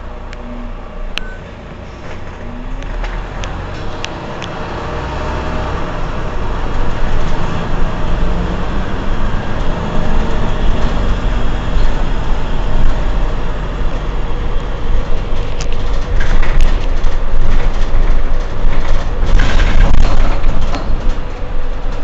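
Mercedes-Benz Citaro C2 city bus standing with its engine running, the low rumble growing steadily louder over the first half and then staying loud, with a few sharp clicks on top.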